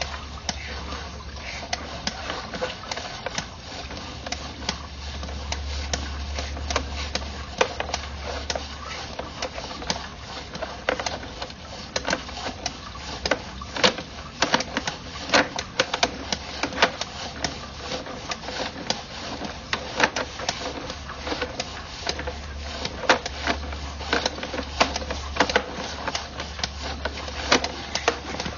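Sewer inspection camera's push cable being fed off its reel and down the drain line, with irregular clicking and rattling throughout over a steady low hum.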